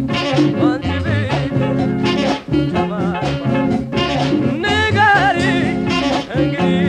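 Old Ethiopian Amharic popular band music: a repeating bass line under a lead melody that bends and wavers in pitch.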